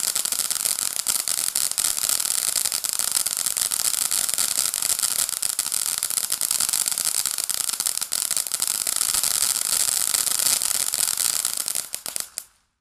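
A ground firework fountain burning with a steady hiss and dense crackling from its crackle stars, sputtering out and going silent near the end.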